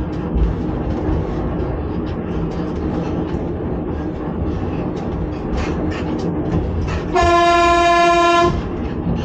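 Running noise of a 1981 Reko-ET electric railcar heard from the driver's cab: a steady rumble with wheels clicking unevenly over the rail joints. About seven seconds in, the train's horn sounds once, a single steady tone lasting over a second, the loudest sound in the stretch.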